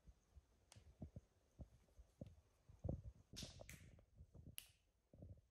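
Faint scattered knocks of small objects handled on a table, with two short hisses about three and a half seconds in and a sharp click just after.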